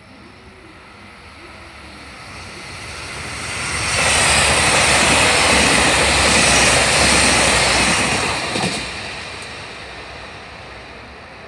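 HOT7000 series diesel multiple unit passing through a station at speed. The rushing rail and engine noise builds over about four seconds, stays loud for about four seconds as the train goes by, then dies away.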